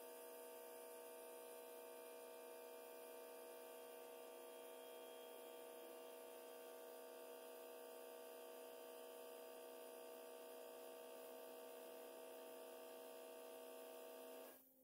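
A faint, steady electrical hum made of several even tones, unchanging throughout, which cuts off suddenly near the end.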